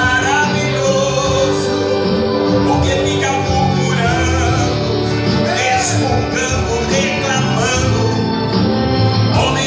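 A man singing a Portuguese gospel song, his melody carried over steady instrumental accompaniment.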